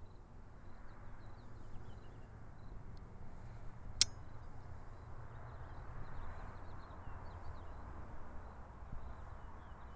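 Outdoor ambience: a steady low background hiss and rumble with faint, scattered high bird chirps, and one sharp click about four seconds in.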